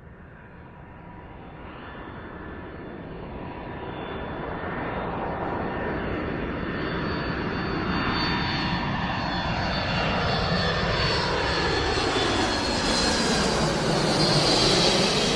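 Aeroplane engine approaching, growing steadily louder over the whole stretch, with sweeping shifts in tone as the plane closes in.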